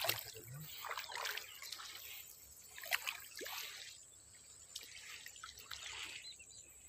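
Water trickling and dripping off a wet fishing net as it is pulled up and worked through the hands, with small splashes at the surface.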